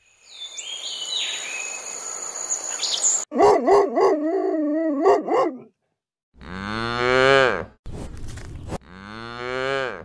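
Cows mooing: two long, low moos, each falling in pitch, in the last few seconds. Before them come a loud, wavering animal call and, at the start, high sliding whistles over a hiss.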